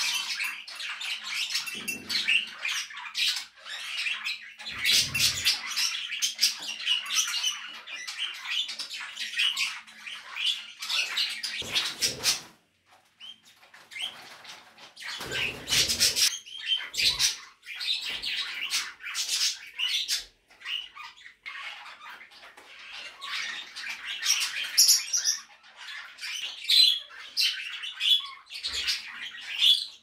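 Cockatiels and a Sierra parakeet preening: a dense, crackly rustle of beaks working through feathers and feathers being shaken out, with a few soft low thuds and some bird chirps.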